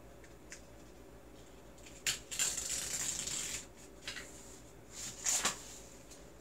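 Handling noises of a photo print, a small wooden board and loose wires being pressed and moved about on a glass stovetop: a rustling, crackly stretch beginning about two seconds in, and a shorter one near the end.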